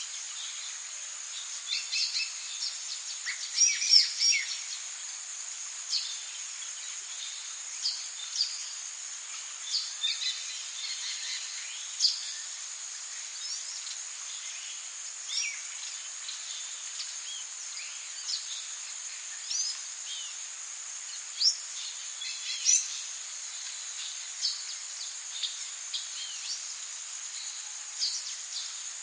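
Tropical rainforest ambience: insects buzzing steadily in a high, even drone, with many birds calling in short chirps and whistled sweeps throughout, a busy cluster of calls about four seconds in.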